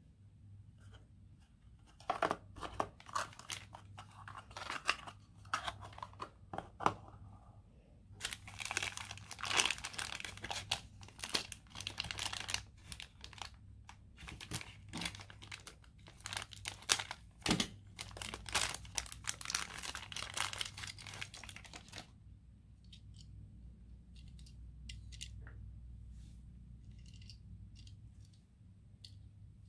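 Cardboard packaging and a thin plastic bag crinkling and tearing by hand as a small die-cast toy car is unwrapped, in rustling bursts. The rustling stops about two-thirds of the way through, leaving a few faint clicks.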